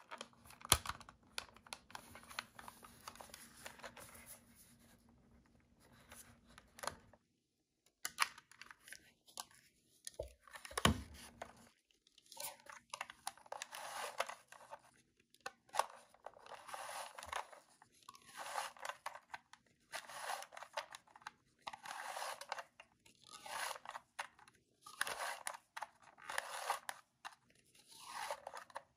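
The plastic thumbwheel on the end of a Kodak S-series S10 35mm film camera being rolled over and over with a thumb, a ratcheting rasp in repeated strokes about every one and a half to two seconds. Before that come lighter handling clicks and one sharp click.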